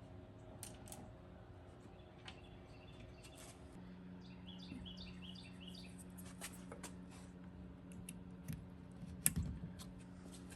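Faint, scattered clicks and taps of hand tools and metal hardware being worked, with a brief run of quick chirping clicks about five seconds in and one sharper click near the end.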